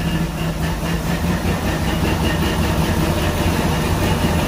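1927 Rolls-Royce Phantom I's straight-six engine idling steadily just after a cold start.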